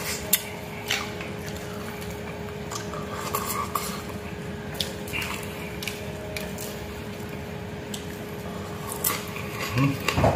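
Close-up eating sounds: chewing and wet mouth smacks, with fingers picking at fried fish and rice on a plate giving small clicks and squishes, over a steady background hum.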